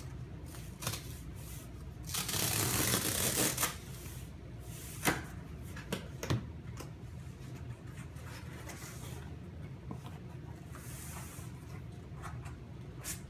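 Cardboard book mailer being opened by hand: the tear strip is ripped off in one noisy pull lasting about a second and a half, then the cardboard flaps are folded open with sharp knocks and rustling.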